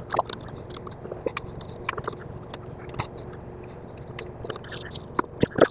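Screwdriver turning a mounting screw through a porcelain lampholder into a ceiling box: irregular small clicks and scrapes, with a louder few clicks near the end.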